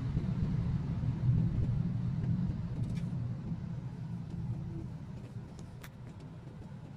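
Steady low rumble that fades away gradually, with a couple of faint ticks.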